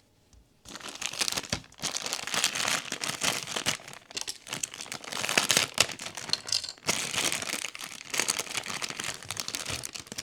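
Blind-box plastic packaging being handled and crinkled in the hands, starting about a second in, with a few brief pauses.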